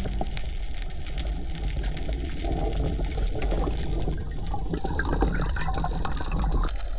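Underwater ambience heard through an action camera: a steady rush of water with a low rumble and light crackling, busier with bubbling clicks for a second or two near the end.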